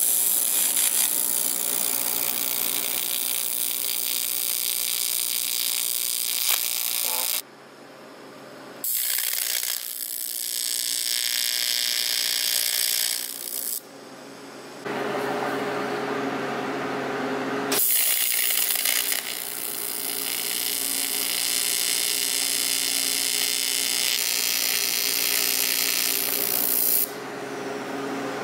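TIG torch welding aluminium plate: the arc's steady electric buzz and hiss, in several runs broken by two short pauses.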